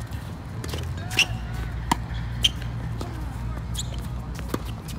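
Tennis ball being struck by racket strings and bouncing on a hard court during a rally: a series of sharp pops, the loudest three close together between one and two and a half seconds in, over a steady low rumble.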